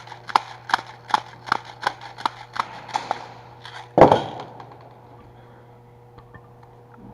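Airsoft gun fired semi-automatically in a steady run of sharp snaps, about two and a half a second, for the first three and a half seconds. A single louder thump follows about four seconds in.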